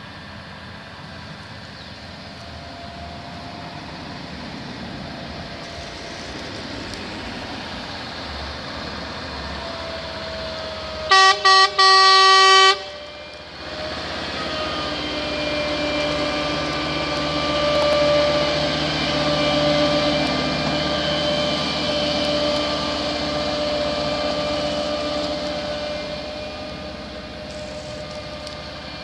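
Hi-rail truck with a Hino cab coming along the rails, its engine growing louder, and sounding its horn about eleven seconds in: two short toots and then a longer blast. It then passes close with its running noise at its loudest, easing off near the end.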